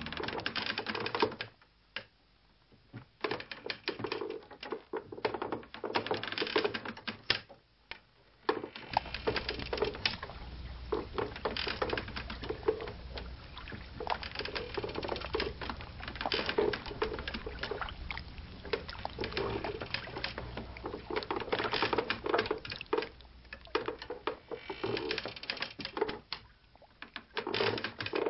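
Dense, irregular clicking and crackling, with two short pauses about two and eight seconds in and a low steady hum underneath from about nine seconds on.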